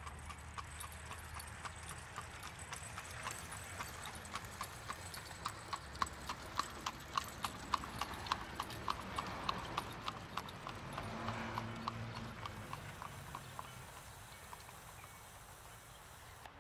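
Horse's hooves clip-clopping at a trot on a paved road as a horse-drawn buggy passes, about three hoofbeats a second. The beat grows louder toward the middle, then fades away.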